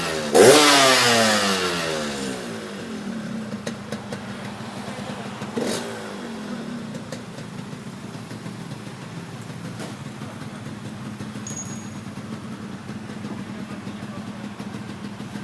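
Yamaha RX-King's two-stroke single-cylinder engine revved hard about half a second in, the revs falling back to idle over a couple of seconds; a short throttle blip comes near six seconds, then it idles steadily.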